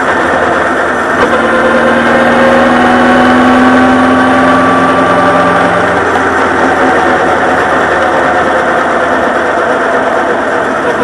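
Honda CB1300 Super Bol d'Or's inline-four engine running, with a short click about a second in, after which its pitch rises slowly for several seconds and then holds steady.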